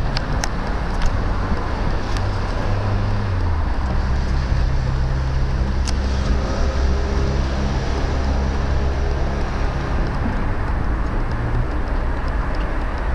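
Passenger train rolling away over station track, a steady low rumble with a few sharp wheel clicks over rail joints and points.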